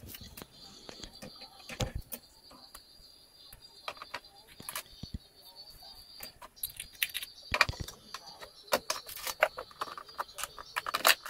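Kitchen handling noises: irregular clicks, taps and crinkles as a plastic food packet is handled and chopsticks stir noodles in a metal pot. The clicks and clinks come thicker in the second half.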